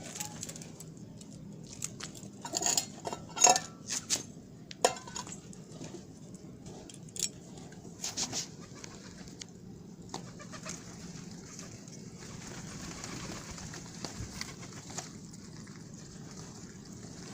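Birds calling, with scattered sharp clicks and knocks, bunched in two clusters a few seconds in, over a steady hiss.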